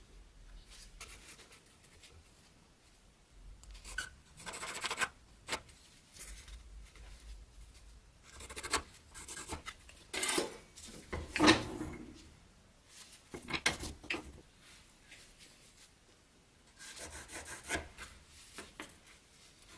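Hand rubbing and rasping strokes of filing or sanding work on the dagger, coming in separate bursts of a second or so with short pauses between.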